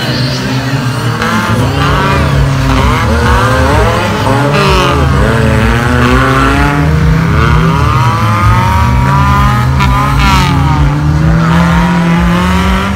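Off-road 4x4 racing vehicles' engines revving hard, their pitch rising and falling again and again, with more than one engine heard at once.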